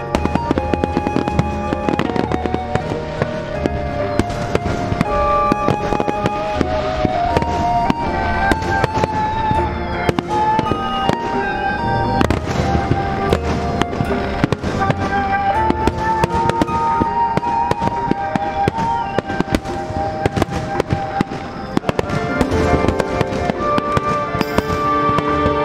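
Aerial fireworks shells bursting and crackling in quick succession, many bangs a second, with music playing throughout.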